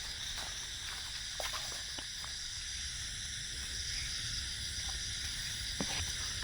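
Steady high-pitched outdoor hiss with a low rumble beneath it and a few faint scattered clicks.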